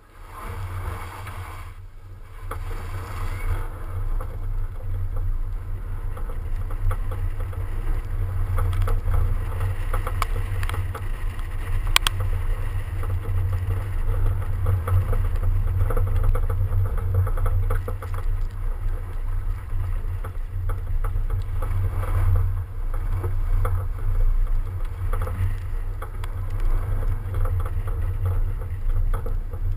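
A BMW 335d driving over packed snow, heard through a microphone on the outside of the car: heavy wind rumble on the microphone with road and tyre noise and scattered crackles from the snow. It grows louder over the first few seconds, then stays loud and steady.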